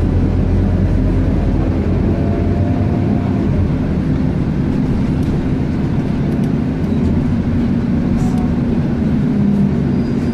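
Scania K230UB bus's nine-litre five-cylinder diesel engine running under way, heard from inside the passenger cabin as a steady low drone with a faint whine and road noise.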